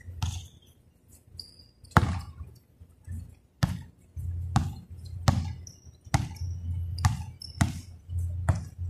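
A basketball bouncing on a court during play: irregular sharp thuds, spaced about a second apart at first and coming faster, about two a second, later on, with a few short high squeaks between them.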